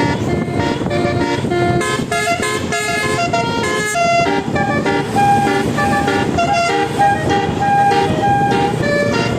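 Bus 'telolet' multi-tone horn playing a quick tune of tooting notes over a steady rumble: a fast run of short notes, then longer held notes from about halfway through.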